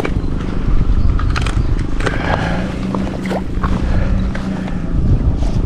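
Wind rumbling on the microphone with scattered handling knocks while an angler fights a large barramundi on rod and reel. A low steady hum sounds for a couple of seconds in the middle.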